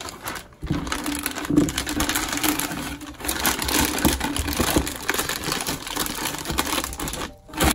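Clear plastic piping bag crinkling and rustling as it is handled and folded open over the rim of a plastic pitcher. It starts about half a second in and stops just before the end.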